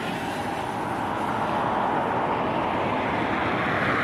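Small quadcopter drone's propellers whining overhead, the pitch rising near the end as the motors speed up, over a steady hiss of road traffic.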